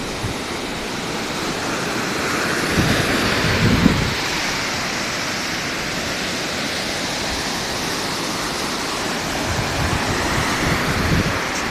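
Ocean surf breaking and washing up the beach, a continuous rush that swells and eases. Wind gusts rumble on the microphone about three seconds in and again near the end.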